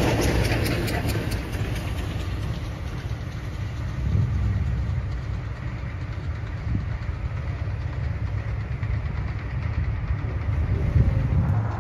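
Low, steady rumble of cars idling at a level crossing, with the noise of a train that has just passed fading over the first few seconds.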